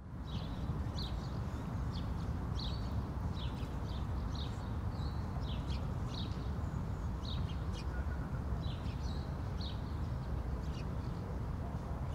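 Outdoor ambience: short bird chirps, about one or two a second, over a steady low rumble that fades up from silence at the start.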